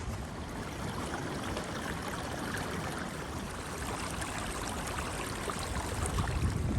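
Strong wind rushing steadily through the forest, an even hiss with no gusting peaks.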